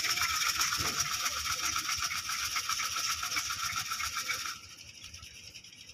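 A hand-held feed tin shaken rapidly, its contents rattling in a fast, even rhythm to call pigeons in. The rattle stops abruptly about four and a half seconds in.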